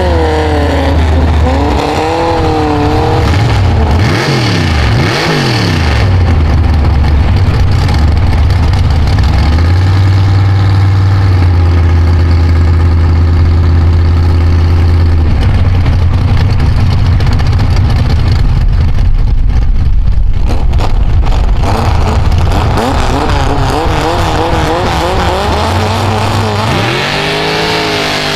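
Engines of a lifted Ford pickup mud truck and a sand rail idling and revving at a drag-race start line. The revs blip up and down in the first few seconds, settle into a steady, heavy idle through the middle, and sweep up and down again near the end while the vehicles wait to launch.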